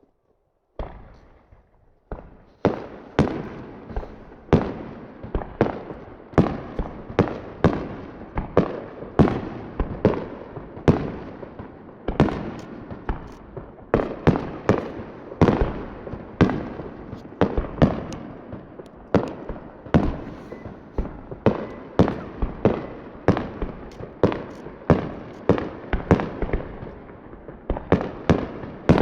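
Japanese aerial firework shells bursting in a fireworks display. The bangs follow one another about two a second, each trailing off in a short echo, and they come thicker near the end.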